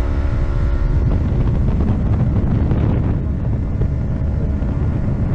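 Small boat's motor running steadily while under way, with a low rumble of wind on the microphone; the motor's tone fades about three seconds in.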